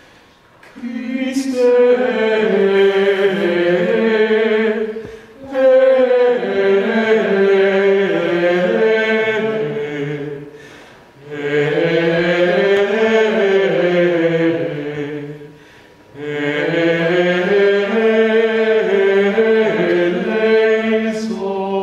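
Choir singing Latin plainchant as a single melodic line, in four long phrases with brief breaks between them.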